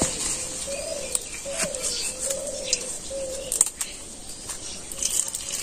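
A dove cooing: a run of short, low, rounded coos repeated every second or so, with scattered faint clicks and a light steady hiss behind it.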